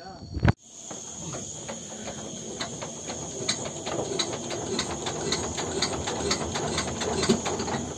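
A sharp click about half a second in, then steady high-pitched insect chirring, several tones held at once, laced with many rapid short ticks.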